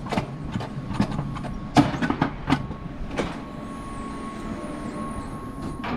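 Alpine coaster sled rolling along its steel rails: a steady rumble broken by irregular clacks and knocks, with a steady whine joining about halfway through.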